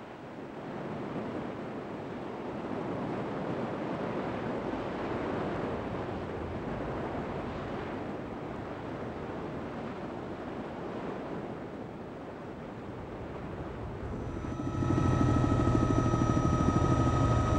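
Steady rushing of wind and breaking surf on an open beach. About 15 s in it cuts to the louder, steady drone of an aircraft engine, heard from inside the aircraft.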